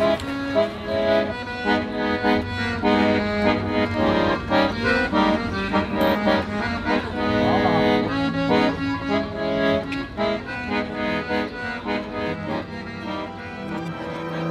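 Accordion playing a tune, a melody over repeated chords.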